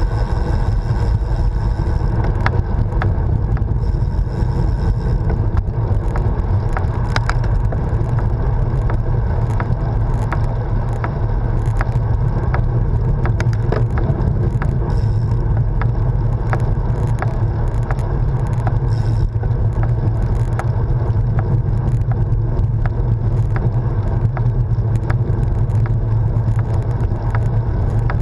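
Wind buffeting an action camera's microphone on a moving road bike, a steady low rumble mixed with tyre noise on tarmac, with scattered small clicks and rattles throughout.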